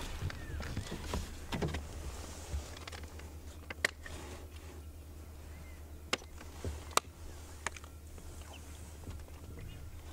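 A few sharp clicks and knocks from handling close to the microphone over a low steady rumble, with faint bird calls in the background.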